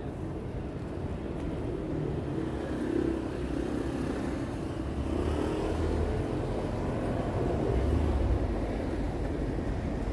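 City street traffic: motor vehicles running and passing over a steady urban rumble.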